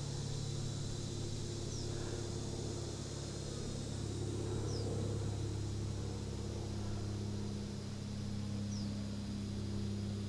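Outdoor ambience: a steady low hum under a constant high insect drone, with three brief high descending chirps spread through it.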